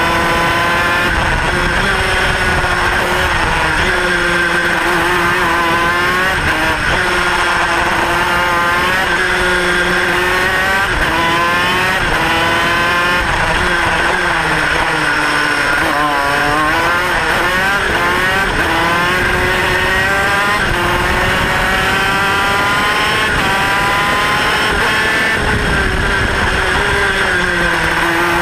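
Racing kart engine heard close up, its pitch climbing hard over a few seconds and then dropping back, again and again, as the kart accelerates and backs off for corners.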